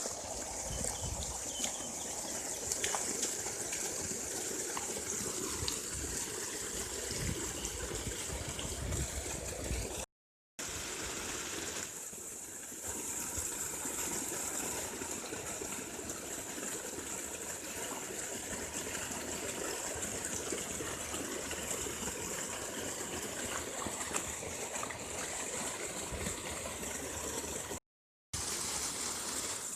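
Water gushing and splashing in a steady rush, breaking off to silence twice, about ten seconds in and near the end.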